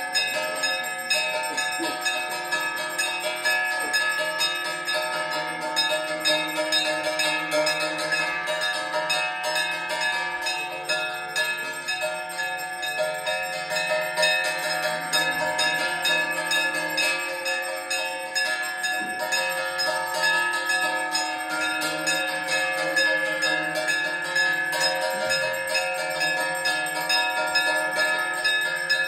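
Temple bells ringing continuously for the arati, struck rapidly without pause, with many ringing tones overlapping into a steady clangour.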